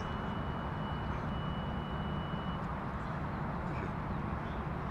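Steady low outdoor background rumble, with a faint thin high whine that stops about halfway through.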